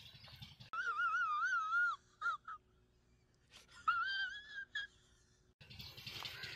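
An inserted meme sound effect: a high, wobbling, whining tone, held about a second, then two short blips, then a second wobbling phrase of about a second and a final blip. The outdoor background cuts out while it plays.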